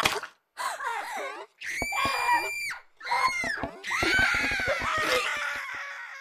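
Cartoon voices screaming and shrieking as animated letters are crushed: a run of short cries, a held high scream about two seconds in, then a long wavering wail from about four seconds in that fades near the end.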